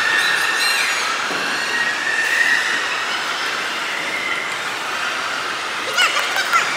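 Steady din of a crowd of spectators in a large indoor track arena, with shrill cheering and yelling for the passing runners breaking out again about six seconds in.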